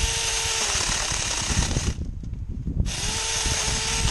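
Mini cordless chainsaw running in two bursts of about two seconds each, with a short pause between. The motor whine rises as each burst starts and falls as it ends, while the chain cuts into a branch.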